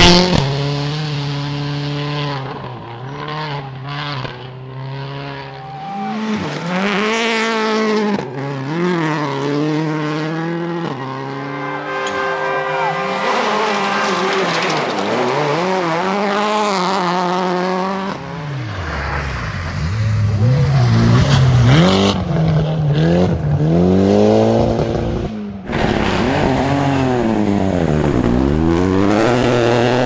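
Rally car engines at full speed, revving high and dropping back again and again through gear changes and lifts. The sound changes suddenly twice, as one car's run gives way to another's.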